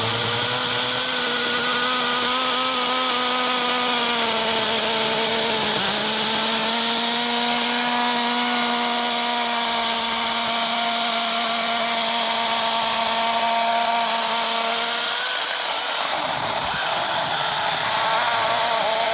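Harbor Freight LYNXX 40-volt battery chainsaw with a 14-inch bar running at speed and cutting wood. It gives a steady high whine over chain hiss, and its pitch sags for a couple of seconds about four seconds in as the chain bogs under load. Near the end the tone breaks off and picks up again.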